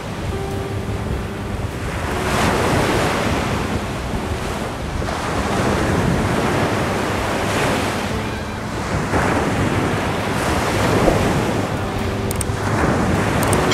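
Small sea waves breaking and washing up a sandy beach, surging and easing every couple of seconds, with wind buffeting the microphone.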